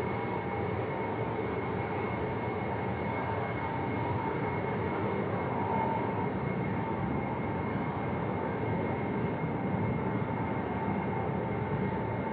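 Xian Y-20 four-engine military transport taxiing, its turbofan engines running steadily at taxi power: an even rushing noise with a faint steady whine over it.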